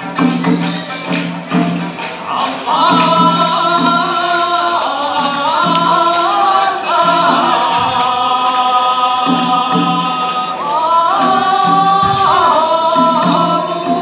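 Okinawan classical dance music: plucked sanshin notes, joined about three seconds in by a singer holding long, wavering notes over the sanshin's steady plucking.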